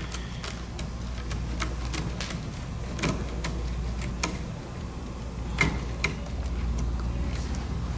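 Scissors snipping through stiff rattan cane webbing strands one after another: a string of sharp, irregularly spaced clicks.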